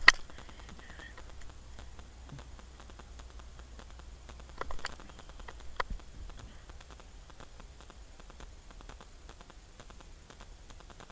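Handling noise around a body-worn camera: a sharp click right at the start, scattered light ticks and crackles, and a few knocks about five seconds in.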